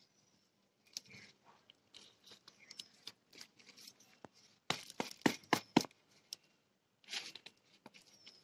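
Small plastic plant pot knocked in a quick run of sharp taps about halfway through, held upside down to loosen a horsetail root ball. Around the taps are crunching and rustling of soil and stems, with a louder rustle near the end.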